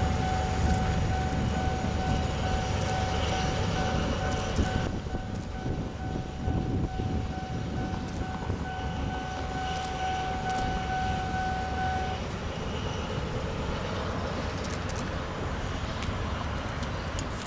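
Limestone freight train of hopper wagons rumbling along the track, with a steady high squeal over it that cuts off about two-thirds of the way through.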